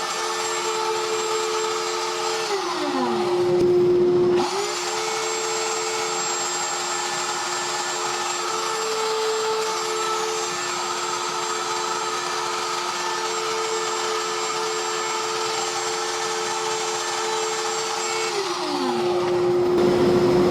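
A CNC router running while it cuts plywood discs: a steady spindle whine under shifting motor tones that change pitch and step on and off as the machine moves. Twice the tones glide down and the sound changes for a moment as the machine moves between passes.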